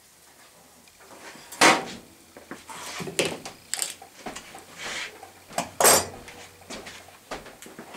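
Metal clanks and clatter as a red-hot part is lifted with tongs out of a small electric heat-treating furnace, set down on the bench, and the furnace door is shut. Two louder clanks come about one and a half seconds and six seconds in.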